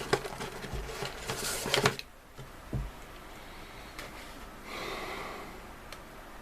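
Rustling and scraping from handling a soft-vinyl figure's parts for about two seconds as a hand is fitted, then a couple of faint light knocks. A soft breath-like hiss comes about five seconds in.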